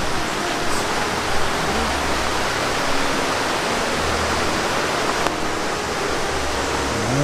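Shallow river water rushing steadily over a rocky bed.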